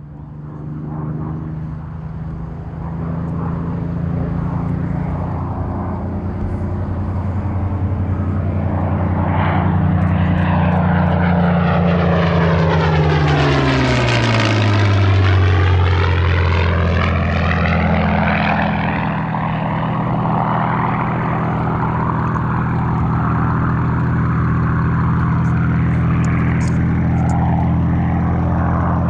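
Supermarine Spitfire's Rolls-Royce Merlin V12 flying past: the engine note swells in, drops in pitch about halfway through as the aircraft goes by, then carries on steady.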